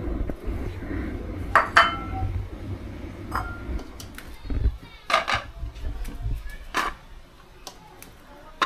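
Metal cooking pot and plates clinking and knocking as food is served by hand from the pot onto the plates. There are about half a dozen separate knocks, a couple of them leaving a short ringing tone.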